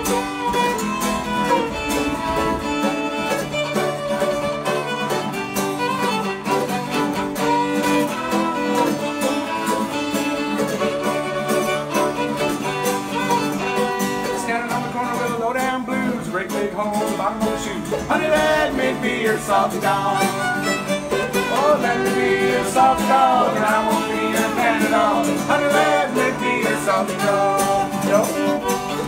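Acoustic bluegrass band playing a lively tune, with the fiddle out front over mandolin and acoustic guitar.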